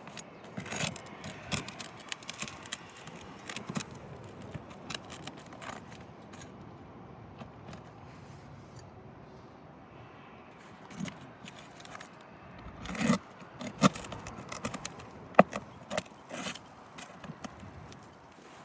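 Scraping and clicking of hand work on asphalt roof shingles, with a few louder sharp knocks about thirteen to fifteen seconds in.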